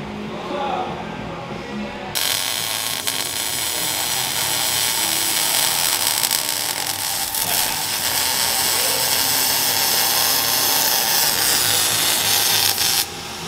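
MIG welding arc crackling steadily as exhaust tubing is welded. It starts abruptly about two seconds in and cuts off shortly before the end.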